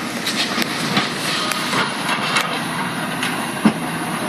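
Demolition excavator breaking up a concrete bridge: steady machine noise with irregular knocks and clatter, and one sharper knock near the end.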